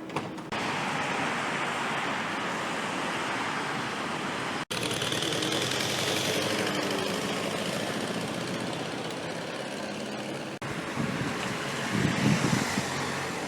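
Steady urban vehicle noise, cut abruptly into three stretches, with a louder low rumble near the end as a vehicle passes or pulls away.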